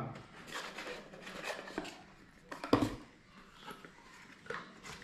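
Cardboard smartwatch box being opened by hand: faint rubbing and scraping as the lid comes off, with a few light taps, the sharpest a little past the middle.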